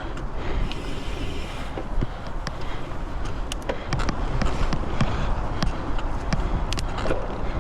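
Twitter Leopard Pro mountain bike riding a bumpy dirt forest trail: a steady rush of tyres and wind on the microphone, with many quick clicks and knocks as the bike rattles over bumps.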